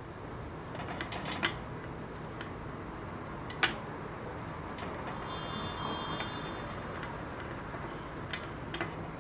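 Light clicks and taps as a holly pen with gunmetal hardware is handled and set down on a glass tabletop: a quick cluster about a second in, one sharper click about three and a half seconds in, and two more near the end, over a steady low hum.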